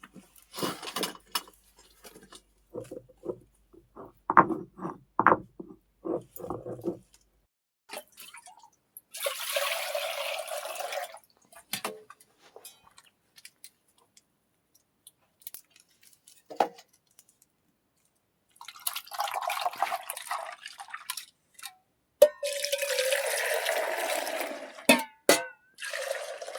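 Foley liquid sounds: a few small clicks and knocks, then several separate bursts of splashing or pouring liquid, each one to three seconds long.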